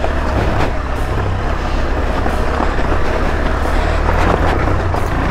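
KTM 390 Adventure's single-cylinder engine running steadily under way off-road, with a haze of trail noise and a few short knocks.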